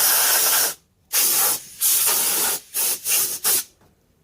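An aerosol spray can sprayed in a series of short and longer bursts, a steady hiss each time with brief pauses between.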